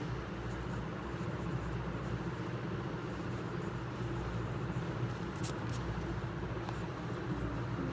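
Graphite pencil scratching on paper while writing and sketching, over a steady low background hum.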